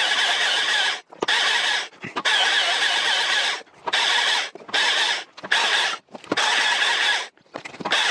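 STIHL MSA 300 battery chainsaw on full power, cutting through logs in a run of about seven short bursts, each up to about a second long, with brief breaks between them.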